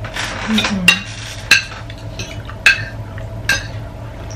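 Metal spoons and forks clinking and scraping against ceramic plates and bowls during a meal: four sharp, ringing clinks about a second apart.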